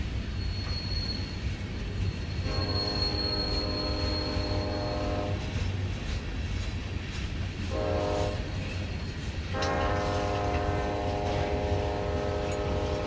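Empty aluminium coal hopper cars rolling by with a steady low rumble, and a thin high wheel squeal in the first few seconds. Over this the lead locomotive's Nathan K5LLA five-chime air horn sounds a long blast, a short one about eight seconds in, and another long blast near the end.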